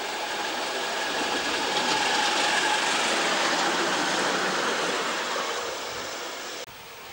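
Ride-on miniature live steam locomotive hauling passengers past, its running noise on the rails building as it approaches and fading after it passes. The sound drops off suddenly near the end.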